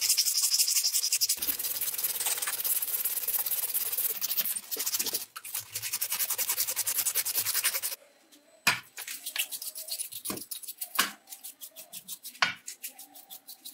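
Abrasive cloth strip pulled rapidly back and forth over the steel rotor and shaft of a Makita bench grinder's motor, a fast, dense scratchy rubbing. About eight seconds in it changes to slower, separate scrubbing strokes as the rotor is cleaned over a metal tray.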